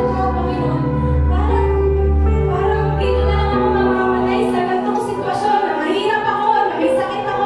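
Tagalog praise-and-worship song: singing over held chords and a full bass, with the low bass dropping away about halfway through.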